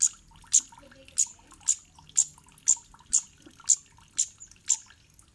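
Cit kemade bird call: a sharp, high 'cit' note repeated steadily about twice a second.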